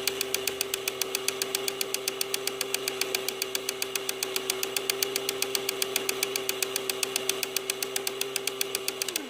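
Dux elkino 900 toy film projector running: a steady motor hum under a fast, even clatter of the film transport, about eight clicks a second. Near the end the hum drops slightly in pitch and the sound cuts off as the projector stops.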